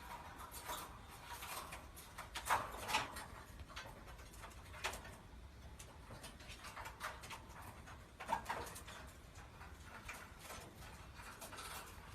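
A parrot making a few soft, short calls, the loudest pair about two and a half to three seconds in and another about eight seconds in.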